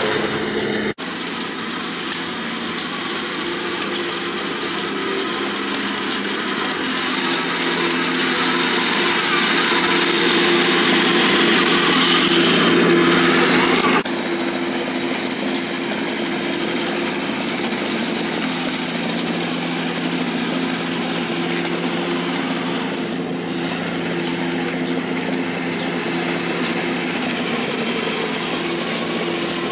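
A Heng Long 1:16 Tiger I RC tank's on-board speaker playing a recorded real Tiger I engine sound as the model drives: a steady engine hum with a rattling hiss over it. It grows louder for several seconds, then drops suddenly about halfway through.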